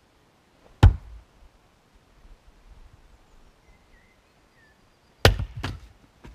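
Fiskars X25 splitting axe chopping firewood: a sharp chop about a second in, then another chop near the end, followed closely by two lighter knocks.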